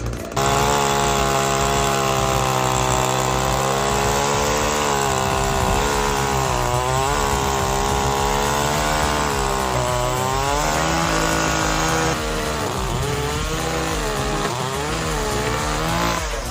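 Chainsaw engine running at high speed, its pitch dipping and recovering several times from about five seconds in.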